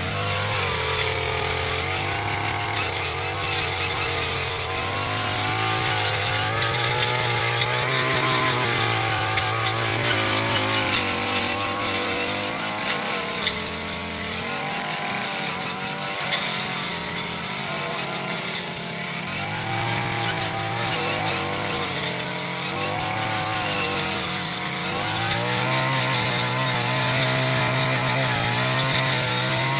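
Grass-cutter (brush cutter) engine running at speed while cutting grass, its pitch rising and falling over and over as the throttle is worked.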